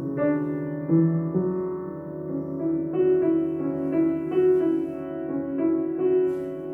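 Solo piano playing a slow improvised piece, single notes and chords struck one after another and left ringing.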